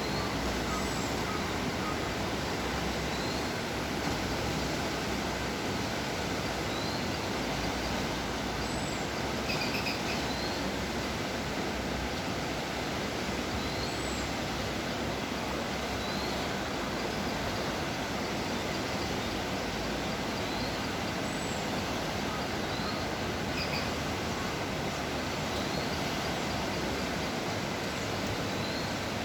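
Floodwater rushing steadily in a swollen forest stream, with short, faint, high bird chirps repeated every couple of seconds above it.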